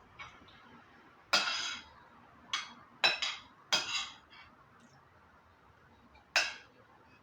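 Cutlery clinking and scraping against a dish of pasta, about five sharp clinks with brief ringing, spread unevenly across a few seconds.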